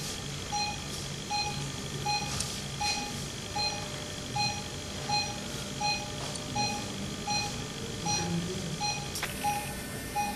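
Operating-room patient monitor beeping steadily, a short tone repeating somewhat under twice a second, the pulse beep that follows the patient's heartbeat. A sharp click sounds about nine seconds in.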